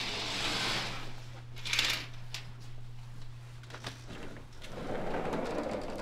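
A dog being readied on its leash: a brief metallic jingle of the leash and collar hardware about two seconds in, a few light clicks, and rustling of clothing, over a steady low hum.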